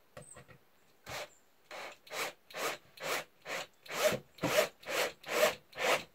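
SKIL cordless drill working a bit into the wood of a beehive box in short bursts: about a dozen noisy strokes, roughly two a second, after a faint bit of handling.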